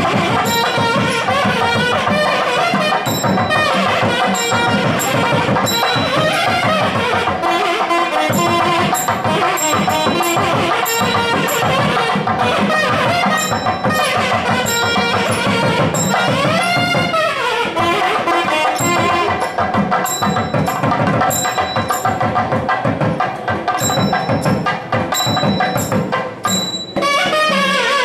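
South Indian temple music: a nadaswaram's reedy melody with gliding notes over rapid thavil drumming, played during the puja.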